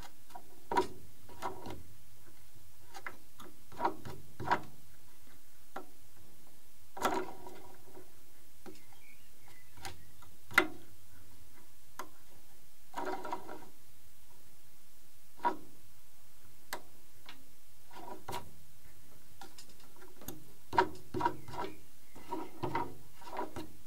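Scattered, irregular small clicks and taps of a hex driver and fingers working a wheel collet inside a plastic wheel spat on an RC plane's landing gear, with the sharpest click about ten seconds in and a cluster of taps near the end.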